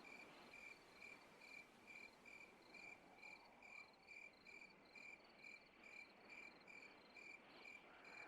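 Faint cricket chirping, an even pulse of about two to three short chirps a second.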